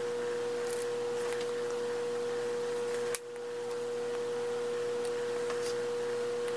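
A steady pure tone held at one pitch, broken by a short click about three seconds in.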